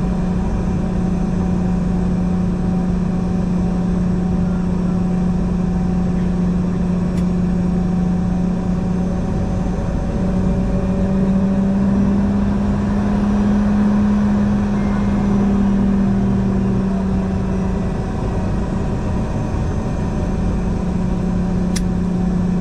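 Steady, loud hum from inside a moving vehicle with no speech. Its pitch rises a little about halfway through and settles back near the end.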